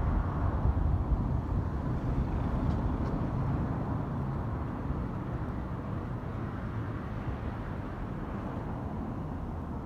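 Low rumble of a Keikyu Line electric train, slowly fading away.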